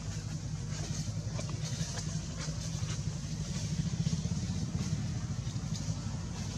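A motor engine running steadily with a low, even hum, with faint scattered ticks over it.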